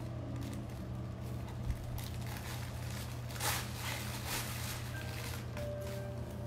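Kittens scuffling and tumbling against a fabric cat tunnel on a tile floor, with a brief rustle about three and a half seconds in, over a steady low hum. Faint held musical tones come in near the end.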